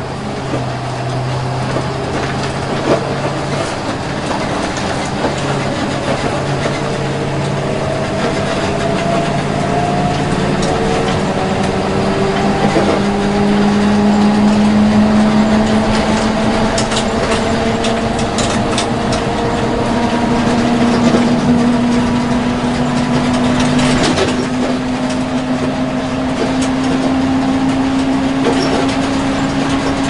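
School bus engine running, steady at first and then climbing slowly in pitch through the second half, with scattered rattles and knocks.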